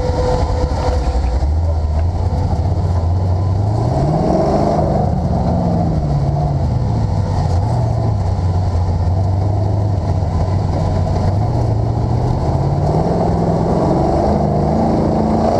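650-horsepower BFD sand car's engine running hard while driving over dunes, heard from inside the cab. The revs climb about four seconds in, ease back and hold, then climb again near the end.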